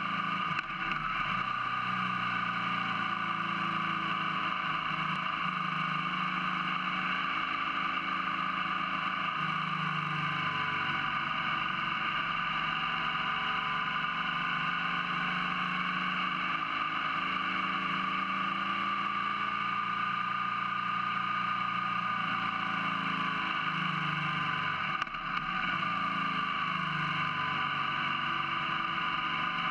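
BMW R1200GS 1200cc boxer twin engine running on the road, picked up right beside a cylinder, its pitch gently rising and falling with the revs. A momentary dip in level comes late on.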